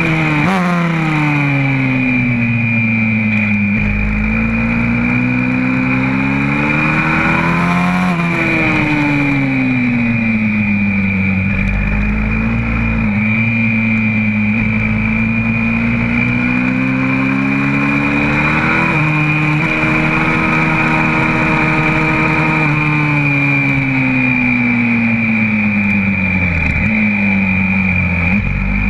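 Single-cylinder four-stroke engine of a YCF 125cc pit bike, heard close up from on the bike, revving up and dropping back several times as it accelerates along the straights and slows for the corners.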